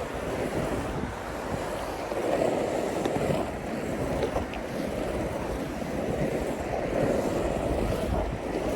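Skateboard wheels rolling over a concrete pump track, a steady rumbling rush that swells and eases as the board pumps through the bumps, with wind buffeting the microphone.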